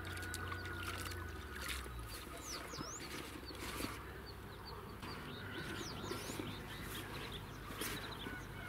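Small birds chirping and whistling in quick high notes, with a few brief splashes of water as a bucket is dipped into the pond to wet groundbait.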